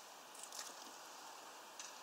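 Faint steady outdoor hiss with a few soft, short ticks, about half a second in and again near the end.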